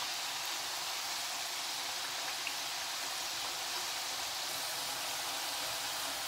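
Strips of namak para dough deep-frying in hot oil: a steady, even sizzle.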